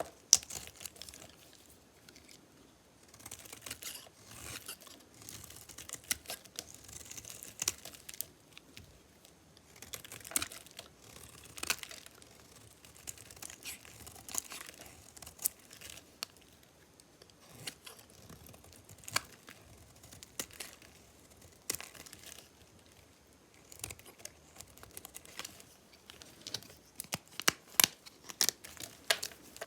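A blade cutting through dry, metal-painted soap bars: crisp scraping and crackling strokes with sharp snaps, coming in clusters, and a quick run of louder snaps near the end.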